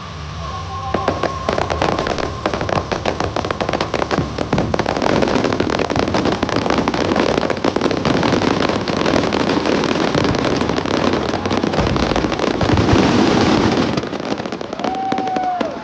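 Fireworks going off: a dense, rapid stream of loud cracks and pops for about thirteen seconds, thinning out near the end.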